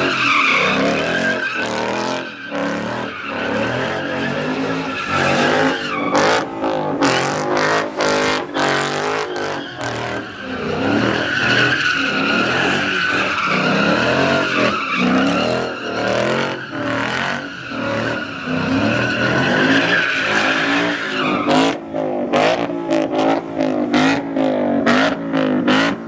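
Car engines revving up and down hard as cars drift, with tyres skidding across snow.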